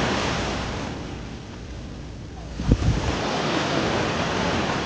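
Small sea waves breaking and washing up over a sandy shore: a steady rushing wash that eases off in the middle and builds again, with wind on the microphone. A single sharp thump nearly three seconds in is the loudest moment.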